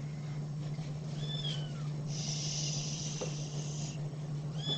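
Small grey tabby kitten meowing: high-pitched falling calls, one about a second in and another near the end. Between them comes a steady hiss lasting almost two seconds, over a low steady hum.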